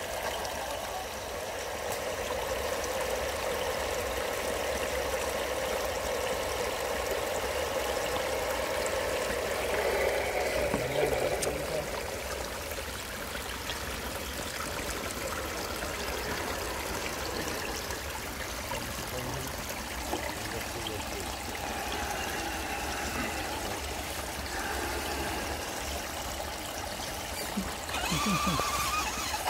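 Shallow creek water trickling and splashing steadily over a small rock ledge. Near the end a louder sound with shifting pitch comes in over the water.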